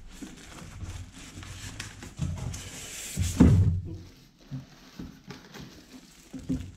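Unboxing handling: foam packing pieces and a plastic bag rustling and scraping against a cardboard box. About three and a half seconds in comes a loud low thump, with a few smaller knocks after it.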